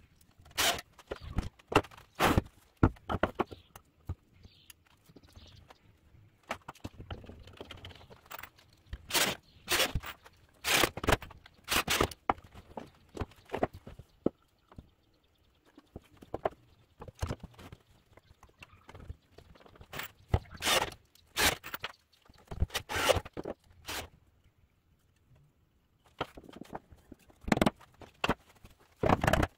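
Irregular knocks, clacks and scrapes of pine boards and hand tools being handled and set down on a wooden workbench, with short quiet gaps between.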